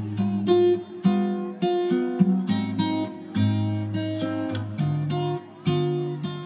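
Background music of a plucked and strummed acoustic guitar, a new note or chord about every half second.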